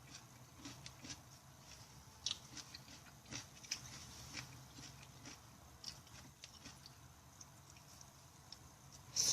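Close-miked chewing and mouth sounds of a person eating vegetable curry: soft wet smacks and clicks at irregular intervals, with a louder one near the end.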